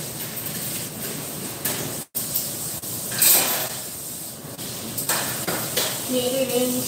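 Kitchen work at a stainless-steel counter: dishes and utensils clattering and being stirred over a steady noisy background, with a short loud hiss about three seconds in. Near the end a chanted tune comes in.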